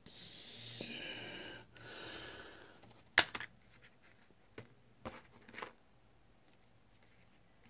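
Two breathy exhales close by, then a sharp plastic click about three seconds in and a few softer clicks and taps as the black plastic shell parts of a remote car key are handled.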